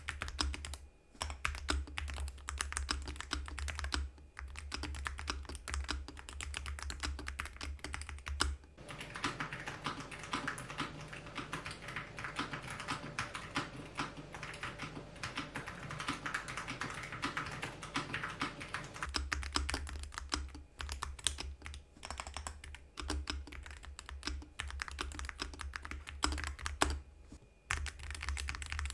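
Continuous fast typing on an Akko MOD007 7th Anniversary Edition gasket-mounted keyboard, a dense run of keystroke clicks with a few brief pauses.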